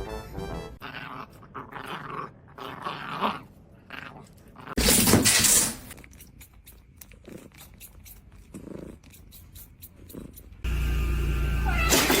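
A dog's noises, growling among them, with a loud burst about five seconds in and another loud stretch near the end. Music ends about a second in.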